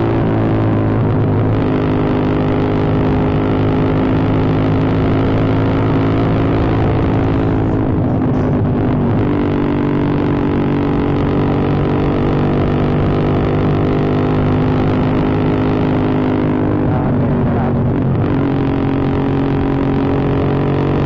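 Rusi Mojo 200cc motorcycle engine running through an SC Project canister exhaust while riding, a steady loud drone. Its pitch falls during the first couple of seconds, then dips and settles again twice, about halfway and near the end.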